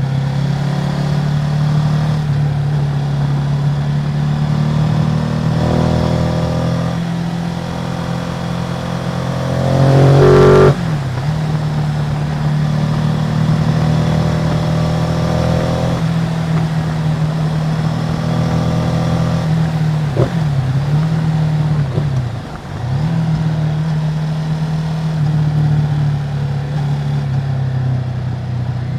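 Ducati Multistrada 950's 937 cc L-twin engine on its stock exhaust, running steadily under way. About ten seconds in there is a brief, louder burst of rising pitch that cuts off sharply, and around twenty seconds in the engine note dips briefly twice.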